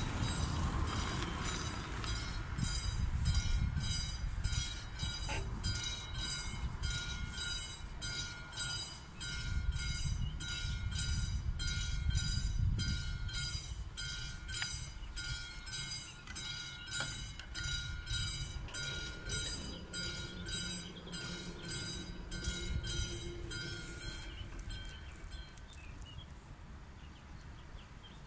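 Railway level-crossing warning bell ringing in an even rhythm of about two strokes a second while the barriers lower, stopping abruptly about 24 seconds in. Car engines rumble underneath in the first half.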